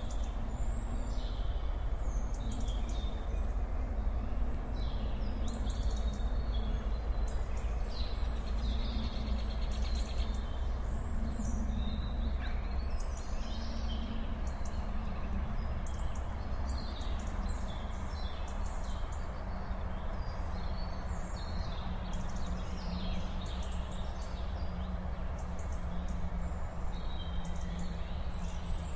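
Countryside ambience: many small birds chirping and singing throughout, over a steady low background rumble.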